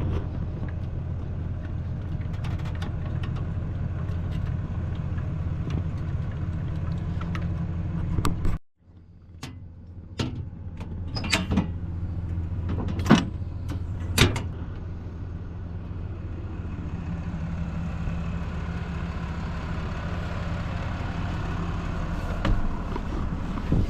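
Steady low rumble of a vehicle driving. It cuts out suddenly about eight and a half seconds in, then a few sharp clicks and knocks come as it builds back up to the steady rumble.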